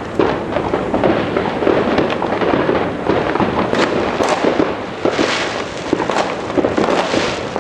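Dense fireworks going off all around: many overlapping bangs and crackles with no break, with brighter bursts of crackling about five seconds in.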